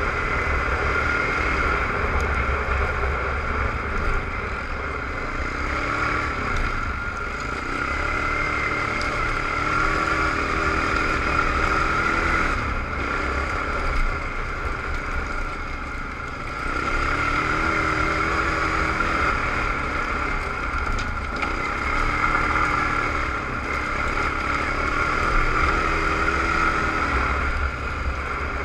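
Suzuki ATV engine running on a gravel trail, its revs rising and falling again and again with the throttle, over a steady low rumble.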